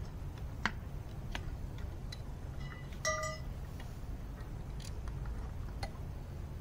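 Scattered light clicks and clinks of greenhouse frame tubes and connectors being handled and pushed together, with a brief ringing note about three seconds in, over a steady low rumble.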